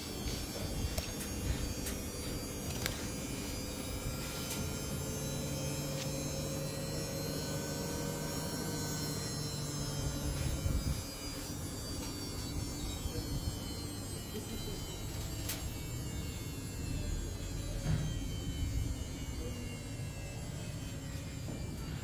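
Samsung ecobubble 8 kg front-loading washing machine in its wash cycle: the drum motor runs with a steady hum and a faint, slightly rising whine, then cuts off suddenly about halfway through. A low rumble and a few light clicks carry on after.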